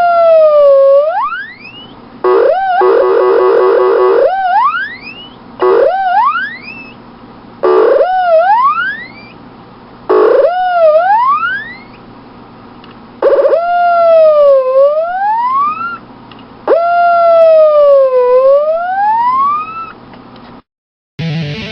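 Tweety Bird CB radio noise toy playing a string of electronic whistle tones, each dipping a little and then sliding up steeply in pitch; some open with a rapid warble, and the later whistles are slower and longer. Guitar music cuts in at the very end.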